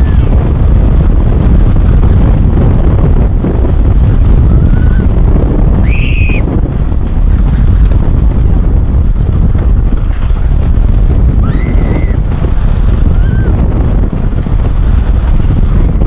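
Heavy wind noise on the microphone over the steady rumble of a wooden roller coaster train running along its track. Riders let out short high screams, loudest about six seconds in and again about twelve seconds in.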